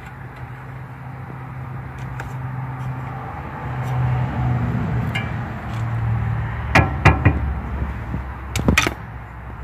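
Metal clinks and taps of a cotter pin being fitted into the lower ball joint stud of a Toyota Tacoma, with a few sharp clinks late on, over a steady low hum.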